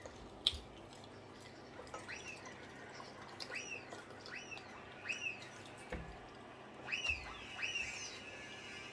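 A small bird chirping over and over, short chirps that each rise and fall in pitch, about one or two a second, with a couple of faint clicks among them.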